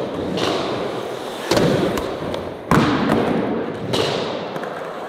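Skateboard wheels rolling on pavement, with three sudden thuds about a second and a half in, near the middle and at the end, as boards are popped and landed in ollie attempts.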